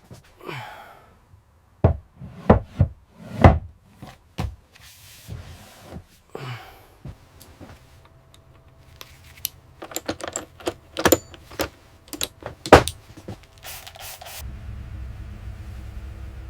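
Irregular knocks and thuds from cabinet doors and fittings being handled, with a cluster of sharp knocks near the middle. A steady low hum comes in near the end.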